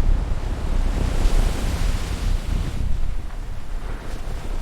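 Steady rushing noise, heaviest in the low end, with no distinct events, easing off a little near the end.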